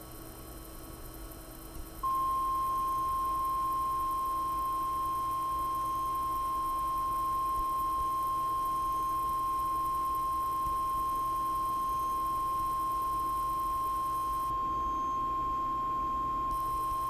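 Kudo3D Titan 1 resin printer's Z-axis stepper motor whining at one steady high pitch as it slowly lifts the build plate off the vat floor. The whine starts abruptly about two seconds in.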